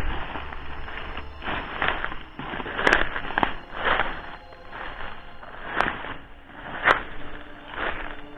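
Footsteps crunching slowly through dry ground cover, about one step a second, with a few sharp snaps among them.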